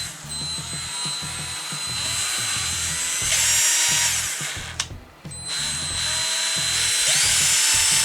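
A 12-volt cordless mini polisher's motor runs with a steady high whine. It stops with a click about five seconds in and starts again half a second later.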